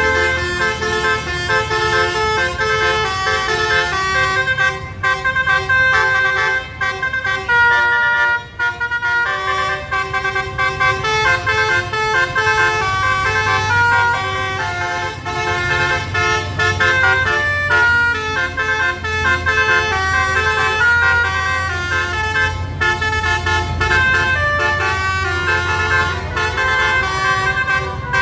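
Musical air horn on a club vehicle playing a tune in quick stepped notes, with a low engine rumble underneath that is strongest in the middle.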